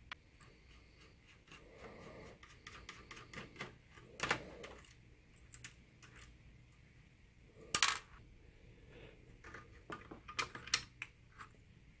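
A #0 Phillips screwdriver turning small screws out of a projector's keypad circuit board: faint scattered clicks and scrapes of the bit and screws, with two louder sharp clicks, one about four seconds in and one near eight seconds.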